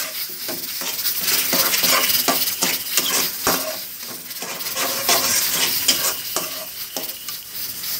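A metal spoon stirring and scraping semolina halwa around a metal karahi, with quick repeated scrapes and clinks against the pan over the sizzle of the ghee it is roasting in.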